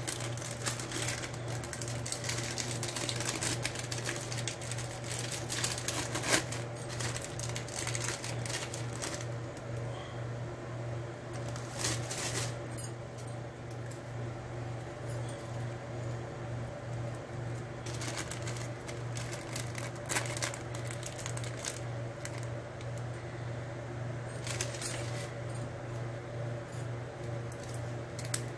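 Plastic film on processed cheese slices crinkling and rustling as the slices are peeled off by hand, with small clicks scattered throughout over a steady low hum.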